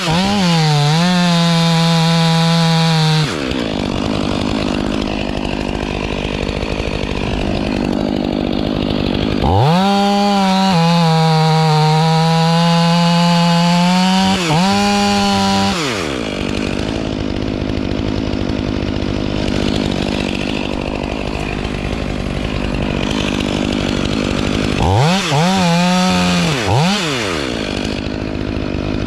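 Chainsaw working a dead tree: the engine is run up to high revs and held under load for a few seconds at the start and again for about six seconds in the middle, dropping to a lower, rougher running between. Near the end come a few quick blips of the throttle before it revs up again.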